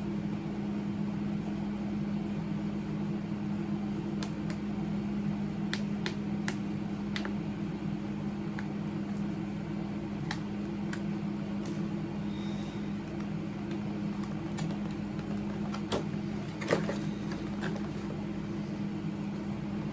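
A steady low hum throughout, with scattered sharp clicks and scratches of a cardboard toy box being picked open with a needle.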